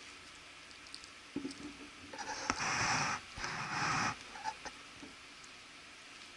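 Teething Yorkshire terrier puppy gnawing and scuffling with a chew bone on a leather sofa: a few clicks, then two scraping, rustling spells of about a second each near the middle.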